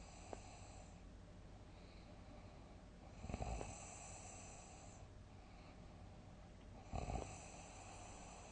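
A person snoring heavily in deep sleep: two big snores about four seconds apart, with quieter breathing between them.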